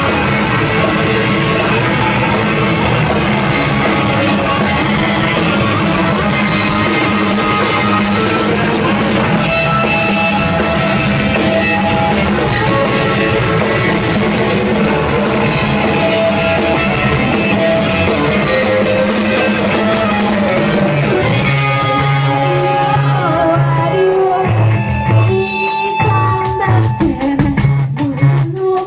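Live rock band playing loud: electric guitars, bass and drums, with singing. About three-quarters of the way through, the dense full-band sound drops back to a sparser passage with clearer held notes.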